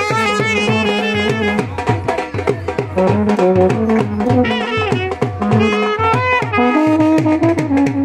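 Street brass band playing a tune: trumpets and a euphonium carry the melody over a steady, quick drum beat.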